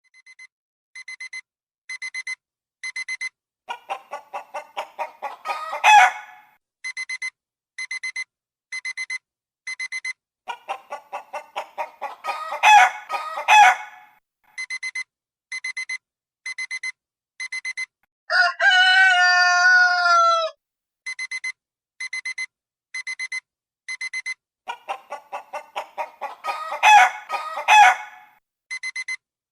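Chicken alarm-clock ringtone: electronic alarm beeps in quick bursts of four, about one burst a second. Chicken clucking comes in over the beeps three times, and a rooster crows once in the middle for about two seconds.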